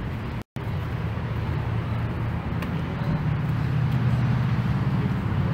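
Steady low outdoor rumble, broken by a brief total dropout about half a second in.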